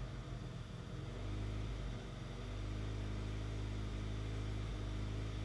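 A first-generation Honda CR-V's 2.0-litre B20 four-cylinder engine idling, unsteady at first and settling into an even idle about two seconds in. The engine has a misfire, on cylinder 1 or random, that the owner has not yet traced.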